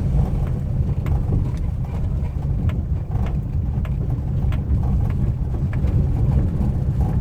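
Maruti WagonR K Series front end rattling and knocking in irregular clicks while driving over a paver-block road, over a steady low rumble of road and engine. The knock sounds like something loose, and the mechanic traces it to play in the worn front brake caliper pins.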